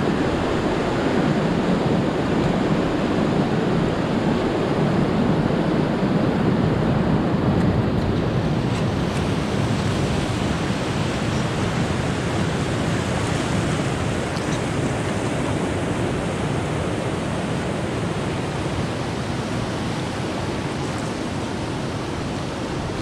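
Shallow river rapids rushing over rocks and gravel around an inflatable kayak: a steady rush of water that gradually softens over the second half as the river runs calmer.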